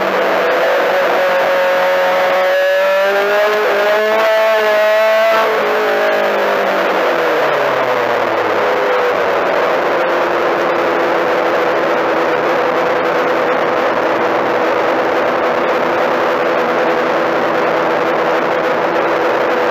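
Four-cylinder race car engine heard from inside the car, revving up and then winding down about five seconds in, after which it runs steadily at low revs. A constant rush of road and wind noise fills the cabin throughout.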